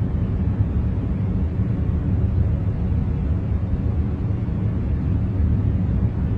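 A continuous noise track made for concentration: a steady, deep rumbling hiss, heaviest in the bass, with no changes or breaks.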